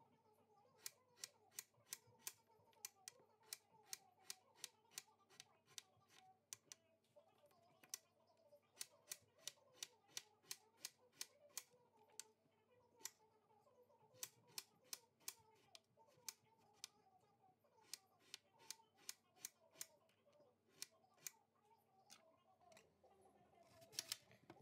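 Kitchen knife slicing eggplant on a plastic cutting board: a sharp knock of the blade on the board with each cut, about three a second, in runs with short pauses. Near the end a louder cluster of knocks as the knife cuts into an onion.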